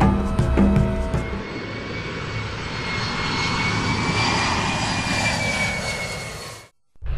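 The end of a music track for about the first second, then an airplane flyby sound effect: a rushing noise with a thin high whine that swells and fades, cut off abruptly shortly before the end.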